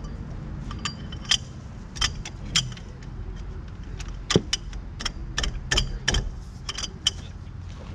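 Irregular metallic clinks and taps of hand tools against a pickup's front brake caliper and its mounting bolt as the bolt is worked loose: about a dozen sharp clinks, the loudest about four and a half seconds in.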